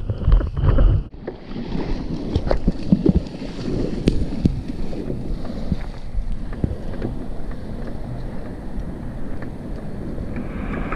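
Wind buffeting the microphone of a camera on a surfboard for about a second, then a sudden change to shallow whitewater washing up the beach around the board, fizzing with small crackles and splashes.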